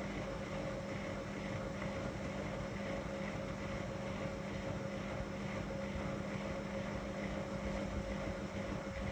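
Whirlpool FSCR 10425 front-loading washing machine running with a steady motor hum and a higher steady tone over an even whir.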